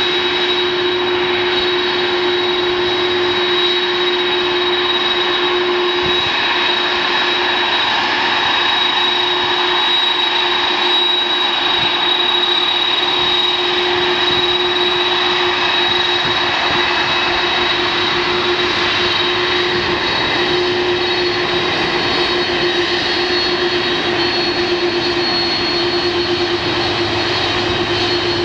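Boeing 747-400ERF freighter's four jet engines running at taxi power: a steady rushing noise carrying a high whine and a lower steady hum.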